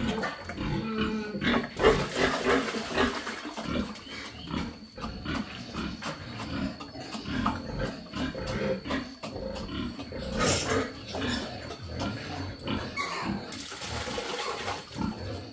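A sow eating from a concrete trough: irregular chomping and slurping, loudest about two seconds in and again near ten and a half seconds.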